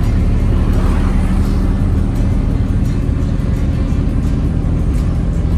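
A car driving on a road, heard as a steady low rumble of engine and road noise, with music playing along with it.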